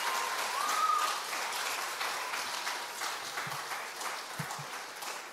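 Congregation applauding, the clapping fading steadily away. A few low bumps come near the end.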